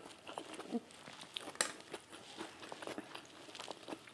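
Eating sounds: a metal fork clicking and scraping on a plate, mixed with chewing. A run of short, uneven clicks, one sharper than the rest about one and a half seconds in.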